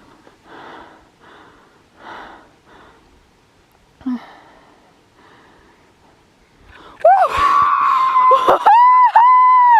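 Faint hushed whispering and breathing, with one short knock about four seconds in. About seven seconds in, a woman breaks into loud, high-pitched excited squealing in long held cries, celebrating a turkey that has just been taken.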